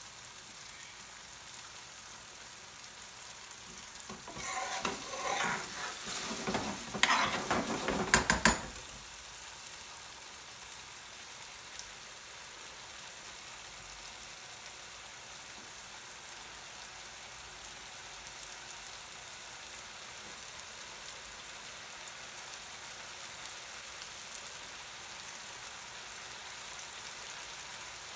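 Chicken curry sizzling in an aluminium pan over a high gas flame, a steady frying hiss. About four seconds in, a metal spoon stirs and scrapes through the thick gravy for around four seconds, ending with a few clanks against the pan.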